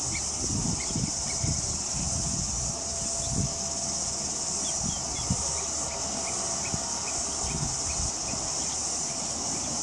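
Steady high-pitched drone of an insect chorus, with scattered short chirps and irregular low thumps of wind on the microphone.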